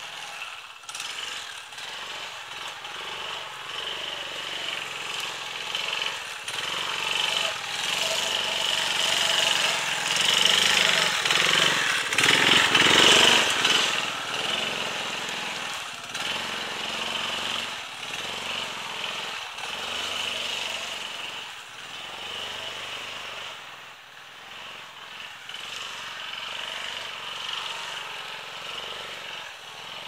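Off-road motor scooter's small engine running. It grows louder as the scooter comes through the forest, is loudest about twelve to thirteen seconds in as it passes, then fades as it rides away.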